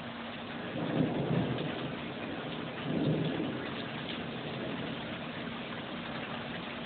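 Steady rain falling, with two short low rumbles of thunder, one about a second in and one about three seconds in, over a faint steady hum.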